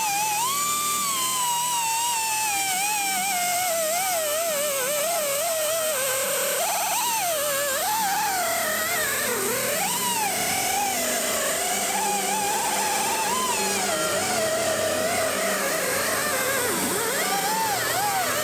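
Small pneumatic die grinder with a round abrasive disc working the rocker panel: a high whine whose pitch slides down over the first few seconds, then wavers up and down as the tool's speed changes.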